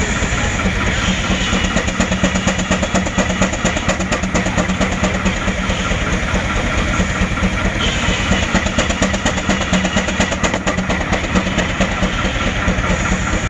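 Advance-Rumely steam traction engine working on the belt to drive a sawmill: a fast, steady beat of exhaust over a steady low hum.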